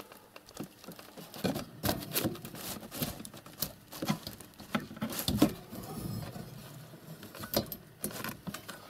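Scattered light taps, knocks and rustling at irregular intervals, the sharpest knock about five and a half seconds in.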